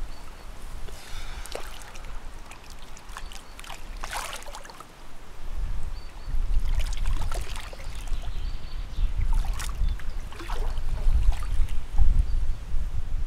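Lake water splashing and sloshing in short bursts as a leather carp is lowered from the mat into the shallows and held there while being released. From about halfway through a low rumble sets in underneath and is the loudest part.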